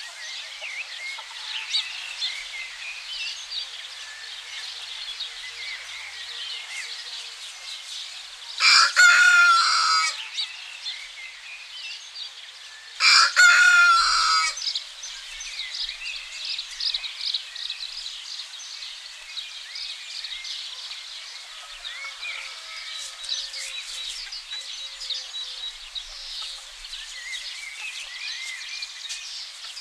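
A rooster crowing twice, each crow about a second and a half long and the second coming about four seconds after the first. Small songbirds chirp steadily in the background.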